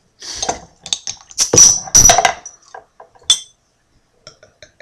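Glass knocks and clinks from a brown glass beer bottle and a drinking glass being handled, in a few short sharp noises that are loudest about one and a half to two and a half seconds in, with a single sharp click a little after three seconds.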